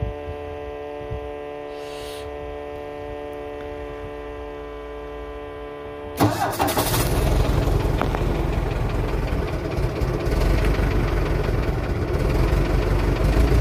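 A steady electric hum, then about six seconds in the Waldon 6000 articulating loader's diesel engine cranks, catches quickly and keeps running on a cold start, growing a little louder near the end.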